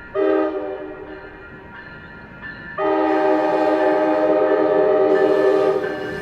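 Locomotive air horn sounding a multi-note chord: a short blast right at the start, then a long blast of about three seconds beginning nearly three seconds in. This is the short-then-long close of the grade-crossing horn sequence.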